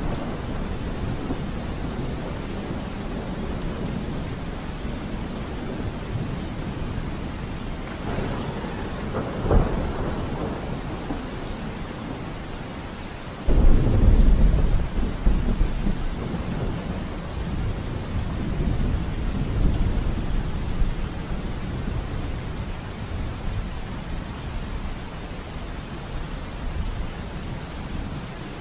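Steady rain with thunder: a sharp crack about a third of the way in, then a loud low rumble that starts suddenly near the middle and rolls away over several seconds.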